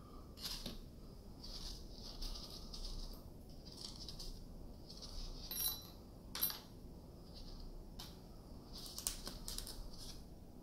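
Small metal and plastic airsoft shotgun parts being picked up and set down by hand: scattered light clicks and clinks, a few sharper ones around the middle and near the end.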